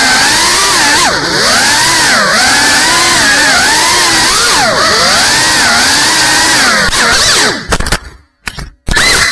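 Whine of a GEPRC CineLog 35 cinewhoop drone's four brushless motors and propellers, its pitch rising and falling constantly with the throttle. Near the end the sound cuts out abruptly, leaving a few short bursts of motor whine with silent gaps between them.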